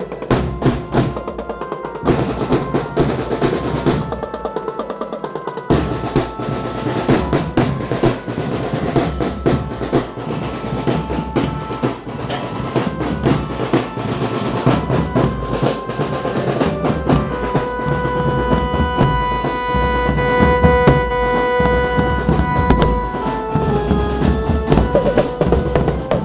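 Marching band drumline playing a fast, driving beat: snare drum rolls over tenor drums and bass drums, with held melodic notes joining over the drums in the second half.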